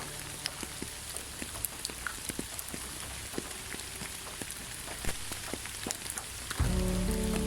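Steady rain, with many single drops ticking sharply against a soft hiss. Soft music with held notes comes in near the end.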